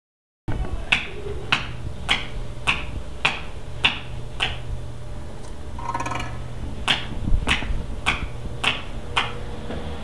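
Foley footsteps: sharp heel-like clicks in a steady walking rhythm, a little under two steps a second. The walk pauses around the middle for a short metallic jingle, then resumes for five more steps.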